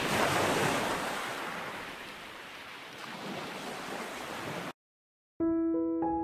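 Ocean surf washing onto a beach, swelling as a wave breaks just after the start and then easing, before it cuts off suddenly. After a short gap, slow piano music begins near the end.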